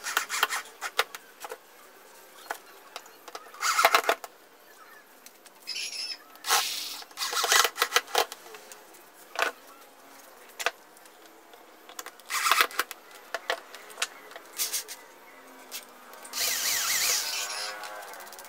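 Scattered clicks, knocks and clatter of tools, screws and wooden parts being handled on a workbench, with a few louder clusters and a longer rustling stretch near the end.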